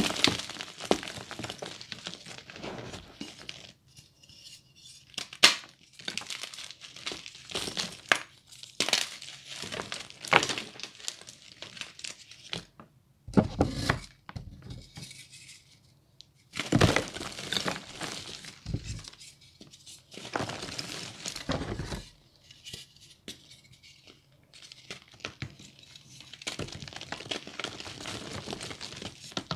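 Reformed gym chalk crushed and crumbled between bare hands: dry, crunchy crackling as the blocks break, with hard chunks clinking as they drop onto a pile of chalk. It comes in spells of a few seconds with short pauses between.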